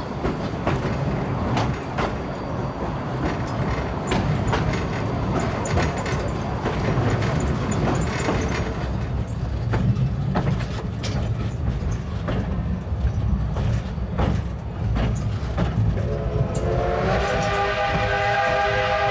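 Narrow-gauge steam-hauled passenger train under way: a steady rumble with clatter of wheels over the rails. Near the end the steam locomotive's whistle starts a long, steady blast of several pitches at once.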